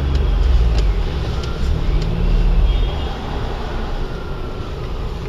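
A small hatchback's engine, seen as a Daewoo Matiz, revving up and dropping back twice over a low rumble while the car is held on its applied handbrake.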